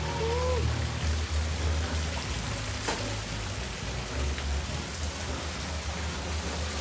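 Background music with a heavy bass line, under a steady hiss.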